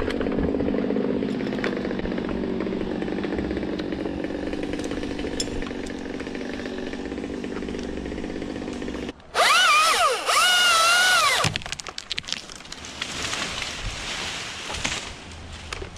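Husqvarna T540i XP battery top-handle chainsaw running and cutting wood: a steady motor drone for about nine seconds, then a much louder high whine that rises and falls in pitch twice as the saw is run up and let off, followed by quieter uneven running.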